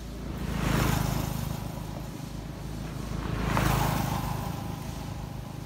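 Two motor vehicles driving past one after the other, each swelling and fading, the first loudest about a second in and the second near four seconds.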